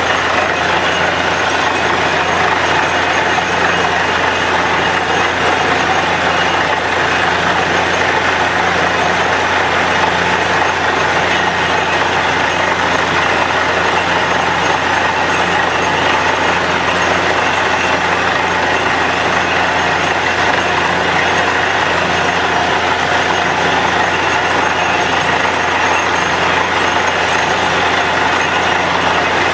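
Truck-mounted borewell drilling rig running steadily: its engine and air compressor drive the drill while compressed air blows water and rock cuttings up out of the borehole, with a low pulse about once a second.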